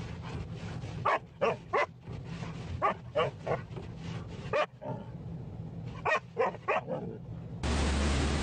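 Siberian husky barking in short bursts of two to four, about a dozen barks in all, over a steady low hum. Near the end the sound cuts to a steady hiss.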